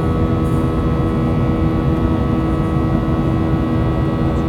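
Boeing 737-800's CFM56-7B turbofan engines running steadily as heard inside the cabin: a low rumble with several steady whining tones over it.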